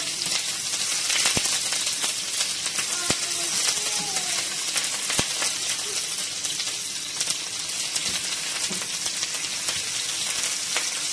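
Onion, garlic and ginger sizzling steadily in hot oil in a nonstick frying pan, with fine crackling. A plastic slotted spatula stirs them, giving a few sharp knocks against the pan.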